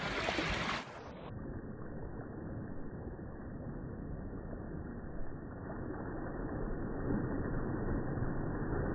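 Low, muffled rumble of sea and wind, with nothing heard above a low pitch from about a second in.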